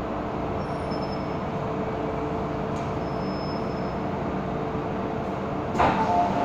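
Hong Kong MTR M-Train heard from inside the carriage while running through the tunnel: a steady rumble with a steady hum. A little before the end a sudden louder burst of noise comes in, and higher steady tones follow as the train nears a station.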